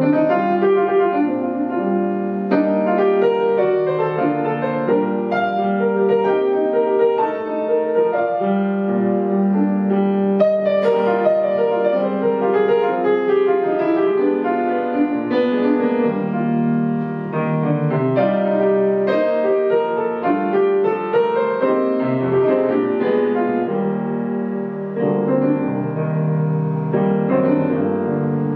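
Yamaha grand piano played solo in a jazz style, a continuous flow of chords and melody notes.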